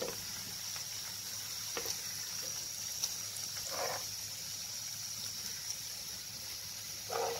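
Paneer cubes shallow-frying in hot oil in a pan, a steady sizzle, with a few light clicks of a spoon turning them.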